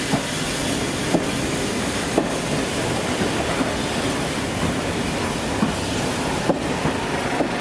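A train running along the track: a steady rumble with the wheels clicking over rail joints about once a second.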